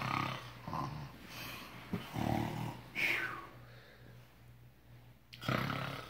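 A man snoring, three drawn-out snores a couple of seconds apart, with a short high falling squeal from a small child between the second and third.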